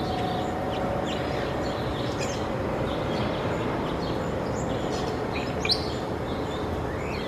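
Scattered short bird chirps over a steady rushing background noise, with a faint held hum during the first few seconds.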